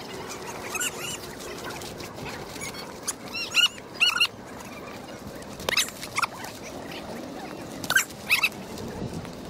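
Short high-pitched animal calls, each rising and falling, in quick clusters of two or three a few times through the stretch, over steady outdoor background noise.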